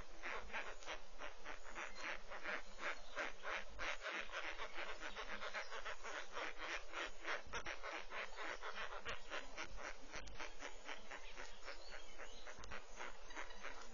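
Insects chirping in a steady pulsing rhythm, about three to four pulses a second.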